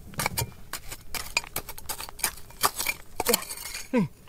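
Metal hand tools clinking and knocking irregularly against rock and gravel, several strikes a second. A brief vocal sound falls in pitch near the end.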